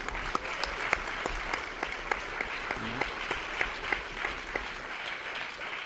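Seated audience applauding: dense, steady clapping from a large crowd that eases off near the end.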